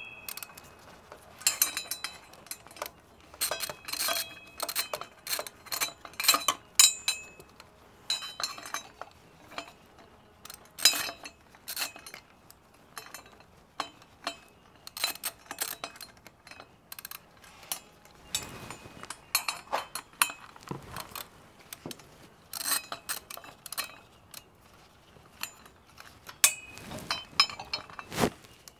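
Metal tools and exhaust parts clinking and clicking irregularly as motorcycle exhaust header pipes are worked on, some clinks ringing briefly.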